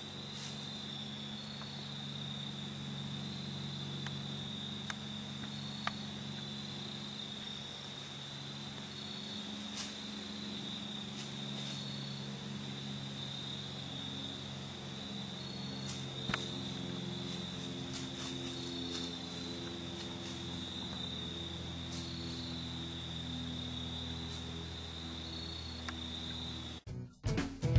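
Evening chorus of crickets trilling as one continuous high note, over a low steady hum and a few faint clicks; it cuts off suddenly just before the end.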